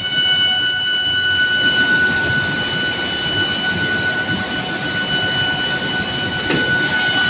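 Steel billet induction heating furnace running: a steady high-pitched whine over a noisy machinery rumble, with a brief knock near the end.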